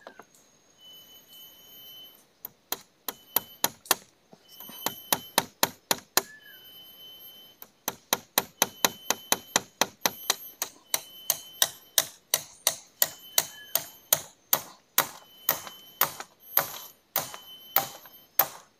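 Rapid series of sharp knocking strikes, about two to three a second, in runs with short pauses, beginning a couple of seconds in.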